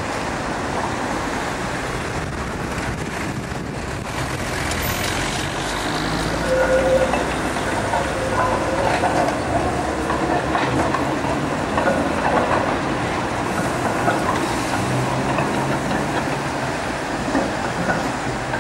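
Articulated tram running on street track through a curve, its wheels clicking over rail joints and points, over a steady rumble of road traffic.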